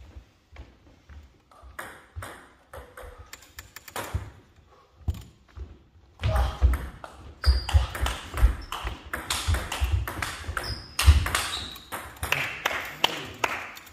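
Table tennis ball clicking off bats and table: a few scattered bounces at first, then from about six seconds in a fast rally. Low thuds of footsteps on the wooden hall floor and a few short shoe squeaks come with the rally.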